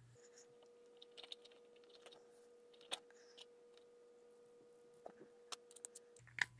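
Near silence broken by a few faint, short clicks and taps from fingers handling a brass air-hose adapter and a plastic fitting while seating an O-ring.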